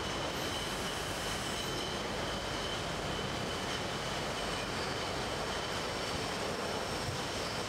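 Beer bottling line running: the steady mechanical noise of a rotary bottle filler and conveyor in operation, with a faint steady high whine over it.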